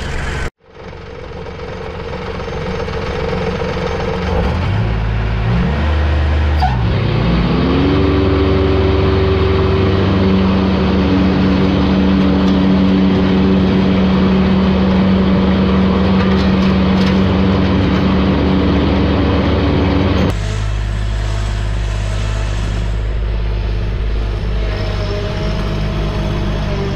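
Bad Boy zero-turn mower's 1100cc three-cylinder CAT diesel engine speeding up over several seconds, then running steadily at high revs with an even drone. About twenty seconds in the sound changes suddenly to a lower, steadier engine hum.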